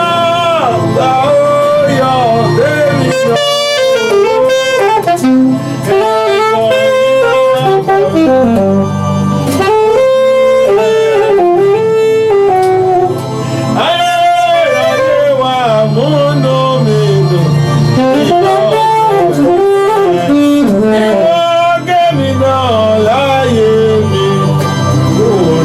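Instrumental break in a Yoruba praise song: a wind-like lead line plays a melody of sliding, bending notes over held low keyboard chords, with no singing.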